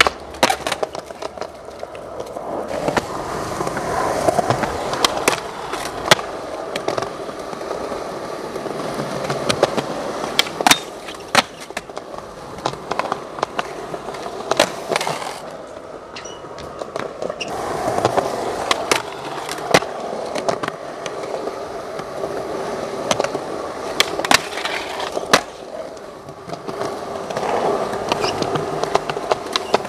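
Skateboard ridden on smooth concrete: the wheels roll with a steady rumble that swells and fades as the board passes, broken by repeated sharp clacks of the tail popping and the board and trucks landing during flatground tricks.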